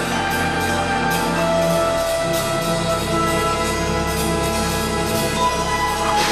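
Orchestral film score played live: held chords over a steady beat of roughly two strokes a second. The bass and harmony shift about two seconds in.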